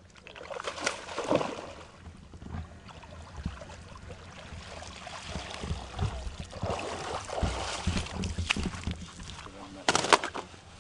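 Shallow lake water sloshing and splashing as a wet fish sling is lifted out and carried ashore by someone wading, with a short louder burst near the end.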